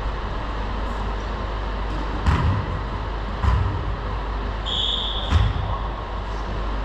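A volleyball thumps on a hardwood gym floor three times, unevenly spaced, over the steady hum of a large hall. A short high squeak comes shortly before the last thud.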